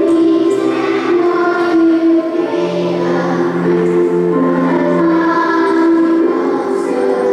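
Choir singing a slow song in long held notes that change pitch every second or so.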